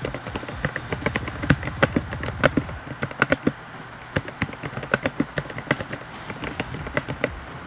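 Typing on a RAKK Pirah Plus 66-key mechanical keyboard with Outemu switches: quick, irregular runs of key clicks, with brief pauses between runs.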